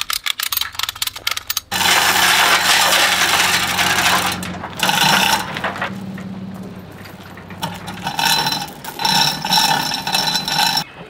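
A ratchet strap clicking rapidly as it is worked, then a chain hoist lifting a bulk feed bag: chain rattling through the hoist over a steady low hum, in several spells.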